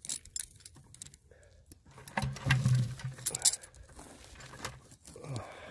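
Small clicks, crackles and rustles of dry twigs and conifer needles being brushed by hand on the forest floor. A brief low hummed voice sound comes about two seconds in.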